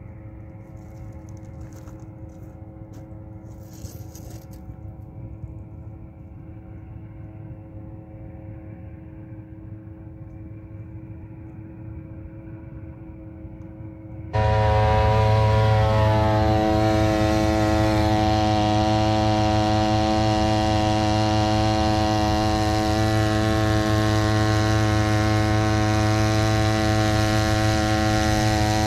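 Engines of a homemade karakat fitted with an outboard motor, running steadily under way across a river. At first it is a distant drone, then about halfway through it turns suddenly loud and close.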